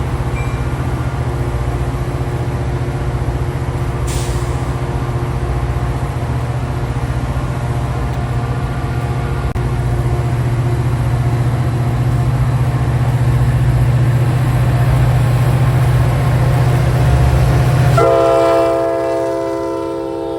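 Ex-Amtrak F40PH diesel locomotive running with a steady low drone that grows louder as it approaches. About eighteen seconds in, its air horn sounds a steady chord.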